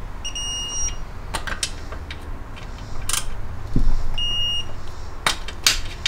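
Two electronic beeps from a digital torque wrench signalling that the set torque is reached on transmission case bolts, one near the start and one about four seconds in, with sharp clicks of the wrench and bolts between them.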